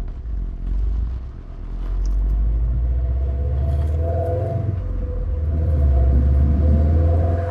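2018 Subaru WRX STI's EJ257 turbocharged flat-four engine running with a deep, steady rumble, swelling slightly about two seconds in and again near the end.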